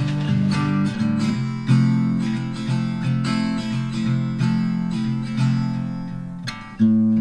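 Background music: an acoustic guitar strumming chords in a steady rhythm, with a fresh loud strum near the end.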